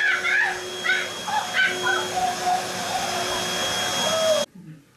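Canister vacuum cleaner running with a steady whining hum, with high, wavering vocal cries over it during the first couple of seconds. The vacuum cuts off suddenly near the end.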